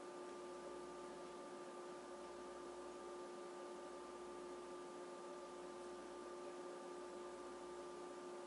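Faint, steady electrical hum: a few unchanging tones, the lowest the strongest, over a soft even hiss. No footsteps or other events stand out.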